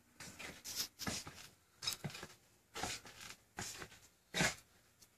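Footsteps and scuffing on the floor of a converted school bus, a string of irregular short scuffs about half a second apart, mixed with rustling. The loudest scuff comes near the end.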